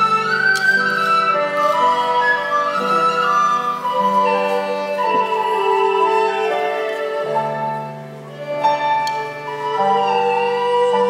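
Live instrumental accompaniment from a small Cambodian-style ensemble: a flute-like melody with sliding notes over held low notes that shift every few seconds, without singing. It dips briefly in loudness a little past the middle.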